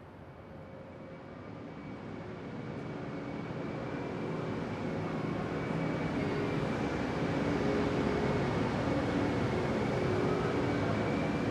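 Vehicle noise: a dense, steady rumble that grows louder over the first half and then holds.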